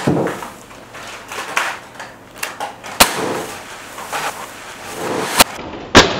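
Umarex Glock 19 CO2 BB pistol (a .177 non-blowback pistol) firing sharp single shots: three loud cracks, about 3 s in, 5.4 s in and just before the end, the last the loudest. Lighter knocks and clatter in between are BBs striking and toppling the soda cans.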